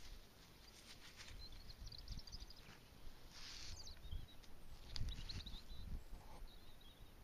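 Faint rustling and soft knocks from gloved hands handling a freshly dug coin close to the microphone, the loudest knock about five seconds in. Small birds twitter thinly in the background.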